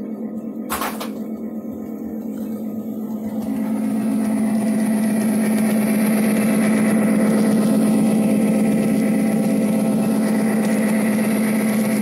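Model railroad diesel passenger train running past close by: a steady engine-like hum that grows louder from about three seconds in, with a hiss of wheels on track joining it, and one sharp click about a second in.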